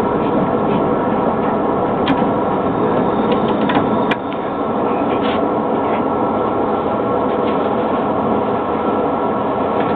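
Steady running noise in a Variolino tram's driver's cab as the driver works the controller. Sharp clicks come about two and four seconds in, and the noise dips briefly after the second.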